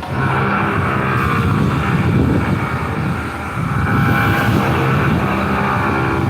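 A machine running steadily with a constant low hum and a whirring noise, easing briefly about halfway through.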